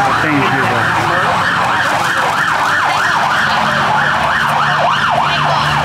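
Electronic siren in a fast yelp, its pitch sweeping up and down about three times a second, over a low steady hum.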